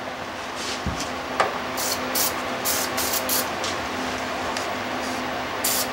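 Hand-tool work on the mower's muffler mounting bolts: a dull thump about a second in, then a run of short hissy, rasping bursts in two groups, over a steady low hum.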